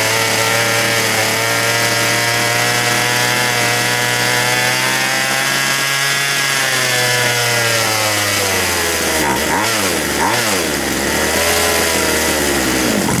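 McCulloch Mac 441 chainsaw's two-stroke engine racing at high revs and refusing to drop back to idle. The pitch sags and recovers twice before the engine suddenly cuts out at the end.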